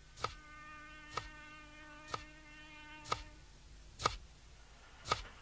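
Six sharp ticks about a second apart, with a steady buzzing tone under the first four that stops about three and a half seconds in.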